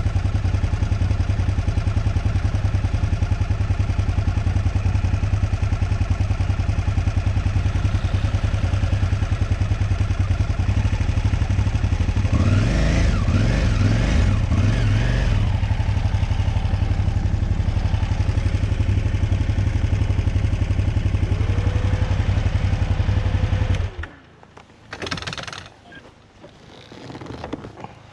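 Motorcycle engine running steadily, with a louder stretch of shifting pitch about halfway through. It cuts off abruptly near the end, leaving only faint sounds.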